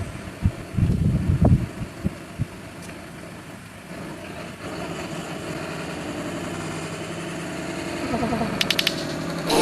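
Car engine running at idle, with a few dull thuds in the first two seconds; the running note gets louder about halfway through.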